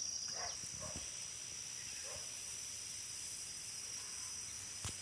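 Steady high-pitched drone of insects in the vegetation, with a faint hiss above it. A few faint short sounds come in the first two seconds and a single click near the end.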